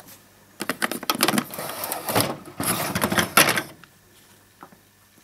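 Old HP 43X toner cartridge being pulled out of an HP LaserJet 9050, its plastic housing scraping and clattering against the printer for about three seconds, then a faint click near the end.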